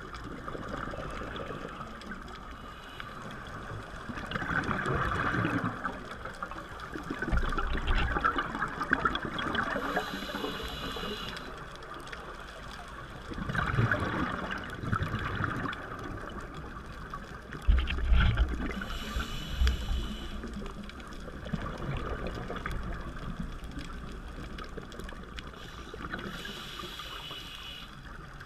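Scuba regulator breathing underwater: a hissing inhale roughly every eight to nine seconds, between surges of exhaled bubbles.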